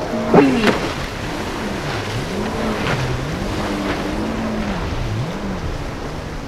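Personal watercraft (jet ski) engine revving up and down over and over as the rider carves tight turns, with the hiss of spray. A brief loud burst with a sharp rise in pitch comes about half a second in.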